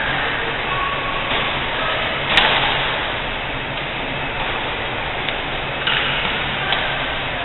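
Steady background hiss with a badminton rally: one sharp crack of a racket hitting the shuttlecock about two and a half seconds in, then a few fainter taps near the end.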